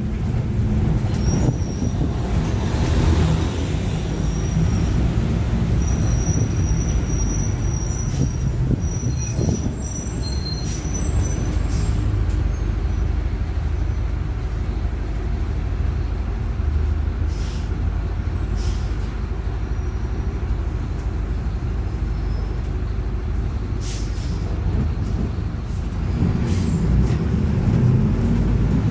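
Mercedes-Benz OF-1721 BlueTec5 city bus running on the road, heard from inside: a steady low drivetrain rumble with the differential droning. A few brief knocks sound over it in the second half.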